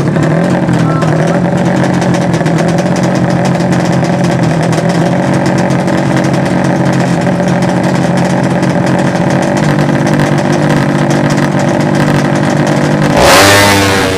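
200cc-class racing motorcycle engines running steadily at high revs. About thirteen seconds in, a louder burst of rising engine noise as a bike accelerates hard close by, then it drops away.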